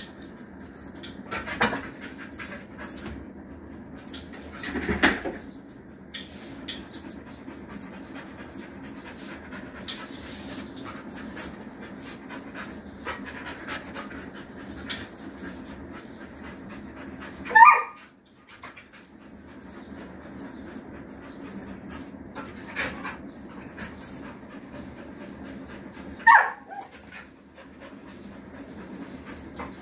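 A Rottweiler panting steadily during play, broken by about five short, louder sounds; the loudest comes about two-thirds of the way through.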